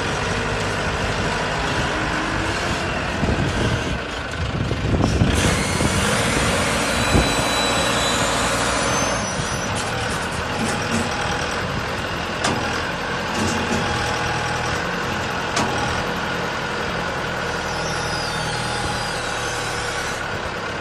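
Diesel engine of a self-loading concrete pan mixer running steadily, with a change in the sound about five seconds in.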